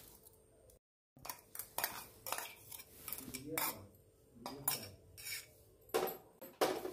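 Steel spoon clinking and scraping against stainless steel as coarsely ground dill-fenugreek paste is scraped off into a steel bowl of flour: a scattered series of short clinks and scrapes.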